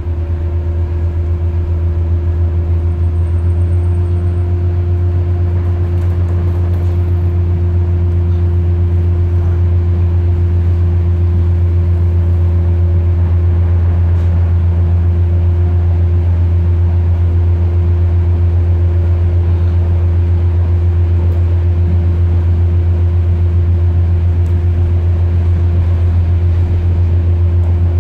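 Class 142 Pacer diesel railbus heard from inside the passenger saloon: its underfloor diesel engine gives a steady low drone, growing louder over the first couple of seconds as the unit pulls away from a station and then holding steady while it runs along the line.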